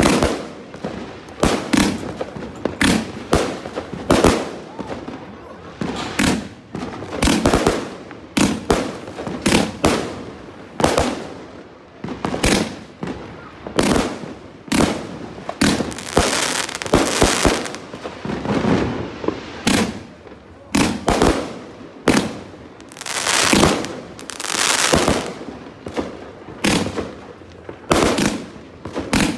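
A 214-shot fireworks cake firing in quick succession. Each shot is a sharp bang with bursting stars, about two a second.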